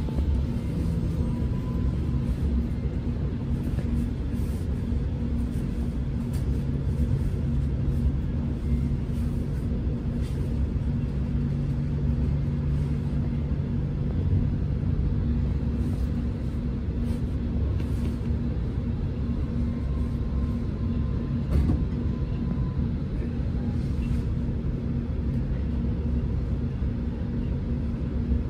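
Steady low engine rumble with a constant low hum that runs unchanged throughout.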